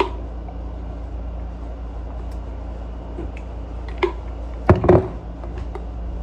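A steady low hum with a few light knocks: a couple of faint ones about four seconds in and two sharper ones just before five seconds.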